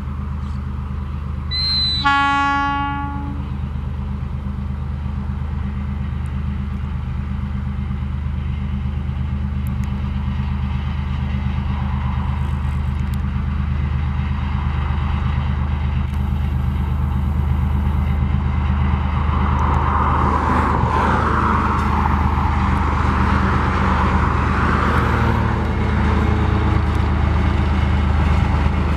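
Diesel locomotive (an ALCO RSD16 repowered with a GM engine) running steadily as it hauls a train of empty hopper cars and draws closer, growing gradually louder. It sounds one short horn blast about two seconds in. Rumbling wheel and rail noise builds near the end as the locomotive comes alongside.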